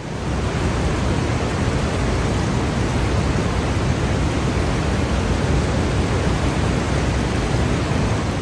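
Vøringsfossen waterfall rushing: a loud, steady noise of falling water, heavy in the low end.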